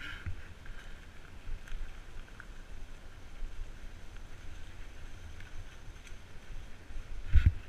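Mountain bike ridden fast down a dirt trail: a steady low rumble of tyres and wind on the helmet-mounted microphone, with scattered rattles and clicks from the bike and one hard thump near the end.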